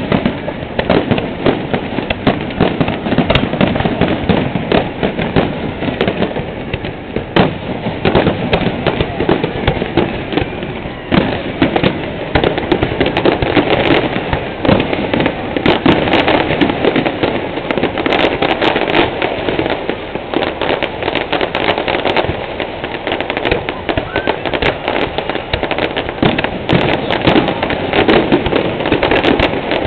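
Aerial fireworks display: a dense, unbroken run of bangs, pops and crackles.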